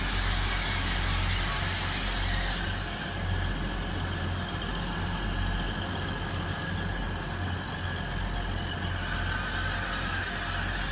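Hull Trains Class 180 diesel multiple unit moving slowly through the station as it pulls in to stop, its underfloor diesel engines giving a steady low hum.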